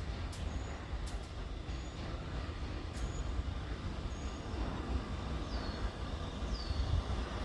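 New York City subway train running with a steady low rumble, with a few sharp clicks in the first seconds. Short high chirps come roughly once a second.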